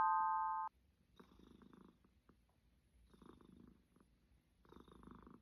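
A cat snoring in its sleep, one rasping breath about every one and a half seconds, each with a faint high whistle. A chime of several held tones, much louder than the breaths, sounds at the start and cuts off suddenly under a second in.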